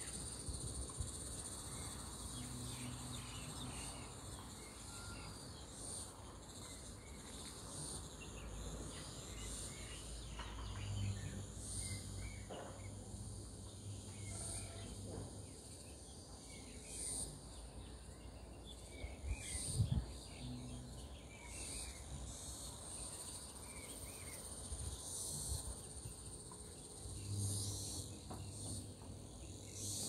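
Steady high-pitched drone of insects, with scattered faint bird chirps and a single knock about two-thirds of the way in.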